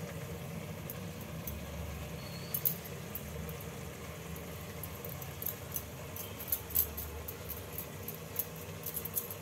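Hands scooping and rolling minced mutton paste into kofta balls: soft handling noise with scattered light clicks of bangles on the wrist, more of them in the second half, over a steady low hum.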